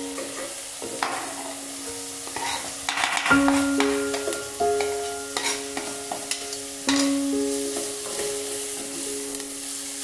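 Chopped onion sizzling in an aluminium pot, stirred with a wooden spoon, with scattered clicks and knocks as more chopped food is scraped off a wooden board into the pot with a knife. Soft piano music plays throughout.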